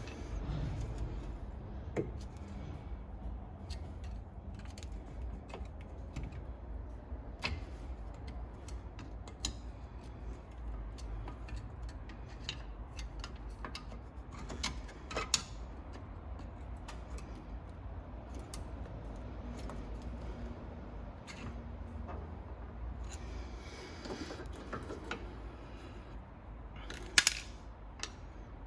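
Scattered metallic clicks, clinks and light knocks of hand tools on brake parts while front brake pads are fitted into a Brembo four-piston caliper. A sharper knock comes about halfway through and the loudest one near the end, over a steady low hum.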